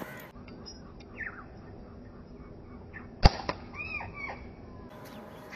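A slingshot shot: one sharp snap of the bands and pouch releasing a little over three seconds in. Short bird chirps sound just before and just after it.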